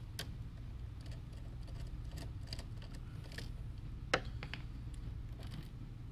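Faint, scattered metallic clicks of a screwdriver and adjustable wrench working a battery terminal bolt loose, with one sharper click about four seconds in, over a low steady hum.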